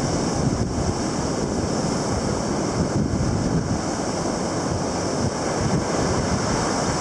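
Steady rushing noise of wind on the microphone mixed with surf.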